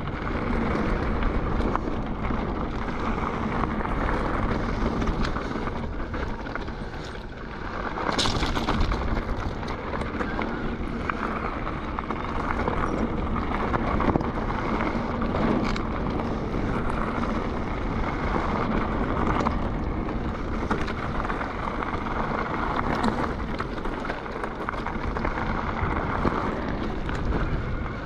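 Mountain bike riding down a gravel trail: tyres rolling over stones, wind buffeting the camera microphone, and frequent small knocks and rattles from the bike over bumps, with one sharp knock about eight seconds in.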